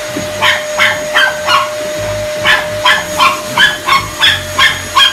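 A dog barking repeatedly at a running upright vacuum cleaner. The vacuum's motor gives a steady whine, and the dog's quick, sharp barks come about three a second in two runs, with a short pause about two seconds in.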